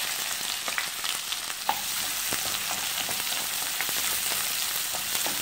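Freshly added chopped onion sizzling in hot sesame oil in a non-stick kadai: a steady hiss with small scattered crackles, stirred with a wooden spoon as it starts to sauté.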